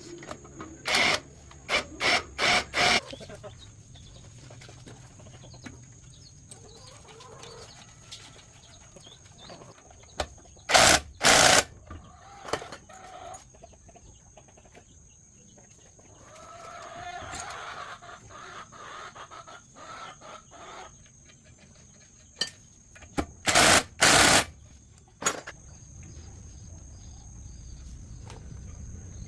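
Sharp knocks in quick groups of four or five, three times over, like hammer or tool strikes. About halfway through, a rooster crows in the background, and a steady high insect drone runs underneath.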